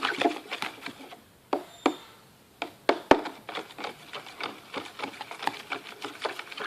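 A spoon clicking and tapping against a container in quick, irregular strokes, with a short lull about a second in; this is colouring being scooped and stirred into glue for slime.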